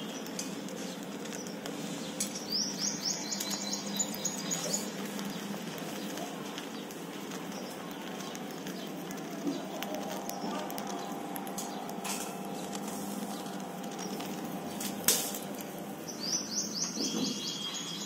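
Pet cage birds chirping: two quick runs of high, rapid chirps, a few seconds in and again near the end, over a steady low hum. A single sharp click about fifteen seconds in.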